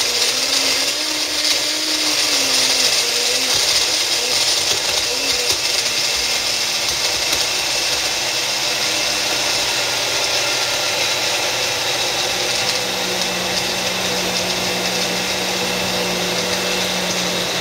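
Blender running continuously, crushing ice in milk and protein powder. Its pitch wavers for the first few seconds, then settles lower and steady, and it cuts off suddenly at the end.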